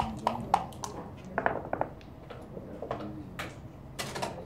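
Sharp clicks and clatters of backgammon equipment, the hard dice and checkers knocking on the board and against each other. There is a quick run of clicks in the first two seconds, one about three and a half seconds in, and another short burst near the end.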